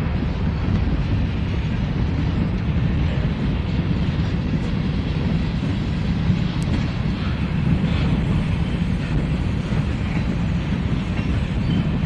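Freight train tank cars and covered hopper cars rolling past, a steady low rumble of wheels on rail with a few faint ticks.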